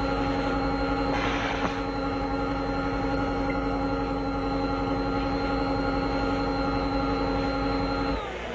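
A steady droning hum of several held tones, like lab machinery or a synthesizer pad, with a brief hiss about a second in. The hum cuts off near the end.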